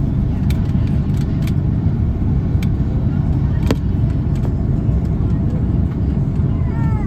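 Airbus A330 cabin noise during landing: a steady, loud low rumble with scattered sharp clicks and rattles. A brief falling tone comes near the end.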